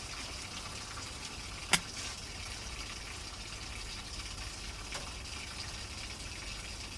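Cooking oil poured from a bottle in a thin stream into a wok, over a steady hiss. One sharp click about two seconds in.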